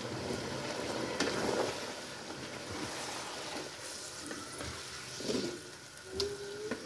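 Chicken pieces in gravy cooking in a pan with a steady low sizzle and bubble, and a slotted spoon stirring and knocking lightly against the pan a few times, twice near the end.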